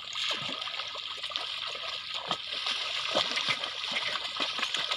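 Young bullocks dragging a plough through a wet, muddy field: a steady run of water splashing and sloshing around their legs and the plough, with many small irregular splashes.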